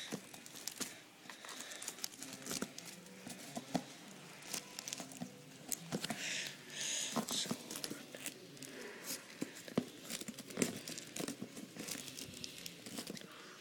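Packaging being pulled and worked at by hand: crinkling and scraping with scattered clicks and knocks, and a longer scratchy tearing sound about six seconds in. The packaging is tight and hard to open.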